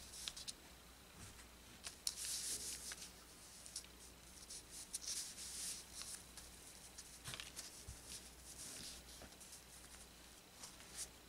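Paper pattern piece and rayon fabric handled and smoothed flat by hand: faint paper-and-cloth rustling in short spells, with a few light ticks.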